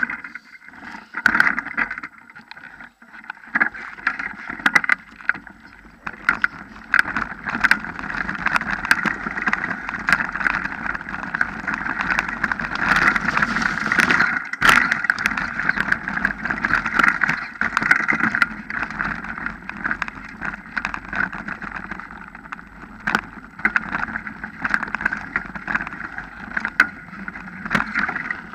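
Mountain bike riding fast over a dirt and gravel trail, recorded from the handlebar: a steady rushing noise from the tyres and the ride, broken by frequent sharp rattles and knocks as the bike jolts over the ground, with one louder knock about halfway through.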